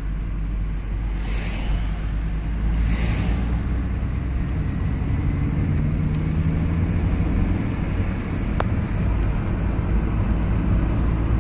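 Car engine and road noise, a steady low hum, with a single sharp click about eight and a half seconds in.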